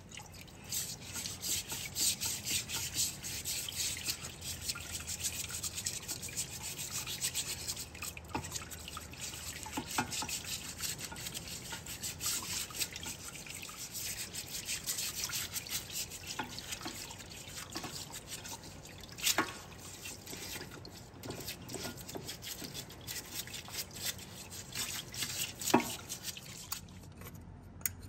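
Rapid, continuous rubbing strokes of an abrasive on metal, dressing a gasket sealing face from a Detroit Diesel 6-71's cooling system flat so it will seal. A couple of sharper knocks stand out, the loudest near the end, and the rubbing stops just before the end.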